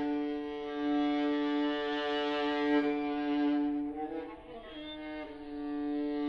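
Contemporary chamber music for two flutes, violin, viola and accordion: a long held note sounds steadily. About four seconds in it thins out and wavers in pitch for a moment before the held note returns.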